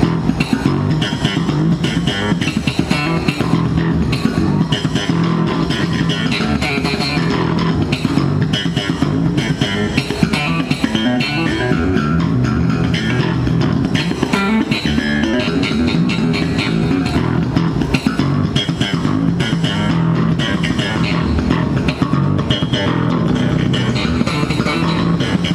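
Electric bass guitar played live through an amplified PA, a fast, busy line of rapidly changing low notes, with the band playing along.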